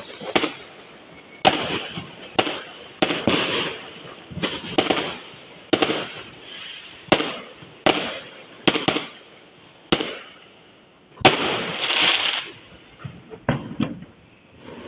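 Fireworks going off in a rapid series of sharp bangs, roughly one a second, each trailing into a crackling hiss. The loudest bang comes near the end and is followed by a longer crackle.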